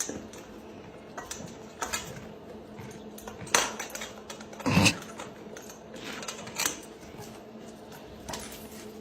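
Irregular light clicks and clatter of small hard objects knocking, over a steady low hum. The loudest knocks come about three and a half and about five seconds in.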